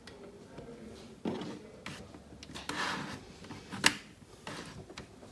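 Plastic laptop casing and parts being handled: rubbing and scraping with a few light clicks, the sharpest about four seconds in.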